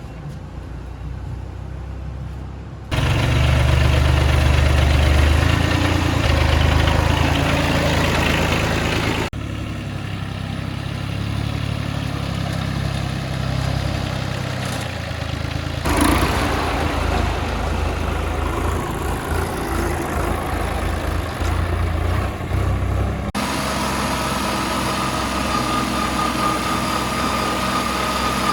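An engine running, in several clips joined with sudden cuts. A steady high whine runs through the last one.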